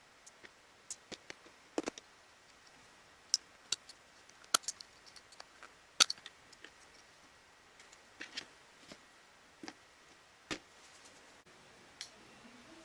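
Scattered light clicks and taps at irregular intervals, the louder ones a few seconds apart, from handling the parts of a Makita TD172D impact driver as it is taken apart.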